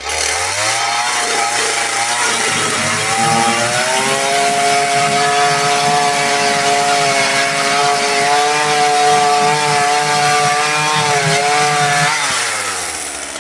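Chainsaw cutting through a wooden board: the engine comes up to speed, climbs in pitch a few seconds in, holds steady under load through the cut, then drops back near the end.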